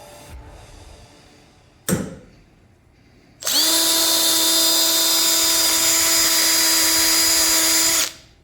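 Small handheld power tool spinning a wire wheel to scuff rust off steel body shims: a brief blip about two seconds in, then a steady high whine with a hiss for about four and a half seconds that spins up quickly and cuts off abruptly.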